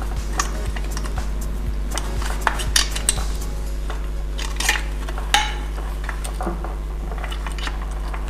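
Light metallic clicks and clinks of 4 mm Allen keys working in the bolts of a bicycle's Polelink pivot axle. The clicks are scattered and come mostly in the first few seconds, with a couple more about halfway through.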